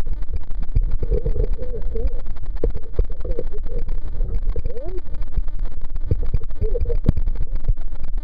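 Muffled low rumble and buffeting of water and wind against a camera mounted on a water ski, with many short knocks and splashes.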